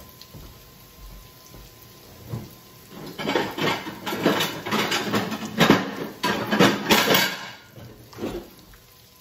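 Dishes clattering and clinking as a plate is fetched, a run of sharp knocks starting about three seconds in and lasting about four seconds, with one more knock near the end. Chicken strips frying in oil sizzle faintly underneath.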